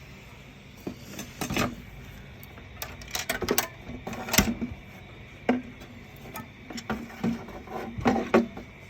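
Irregular clicks and knocks of small parts and a hand tool being handled while a paper shredder is taken apart and refitted; the machine is not running.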